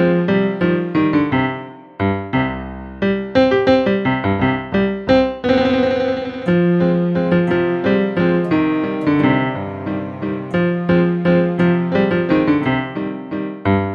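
Instrumental keyboard music in a piano-like sound, a run of quick notes over a low bass line. There is a short low passage about two seconds in and a held, wavering chord near the middle.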